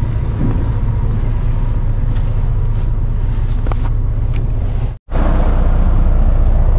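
Steady low rumble of an idling semi-truck diesel engine, broken by a brief dropout about five seconds in.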